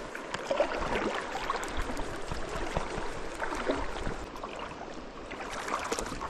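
Shallow stream water running, with irregular splashes and short clicks throughout as a hooked brown trout is played in the water.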